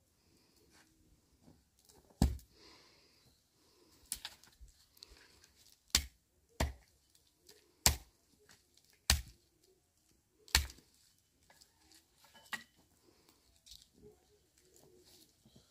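About eight sharp, heavy knocks, irregularly spaced one to two seconds apart, with quieter handling sounds in between.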